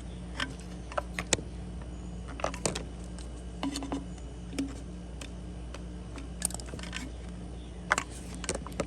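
Small irregular clicks and taps as the new fuel line and wire hook are worked into the two-stroke trimmer's fuel tank, over a steady low hum.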